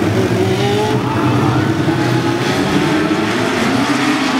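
A pack of Legends race cars' small four-cylinder Yamaha motorcycle engines running at high revs as the cars go past. The engine notes rise in pitch about a second in and again near the end.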